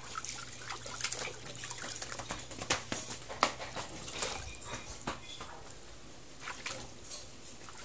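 Water splashing and sloshing in a plastic tub as hands scoop it over a wet shih tzu puppy, with irregular splashes throughout. A hose pipe runs water into the tub.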